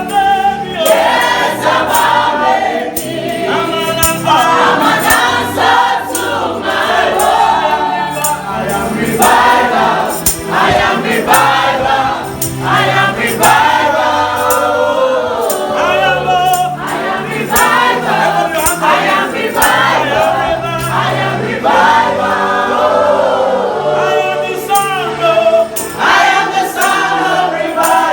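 A choir singing a gospel worship song over instrumental backing with sustained low notes and a steady beat.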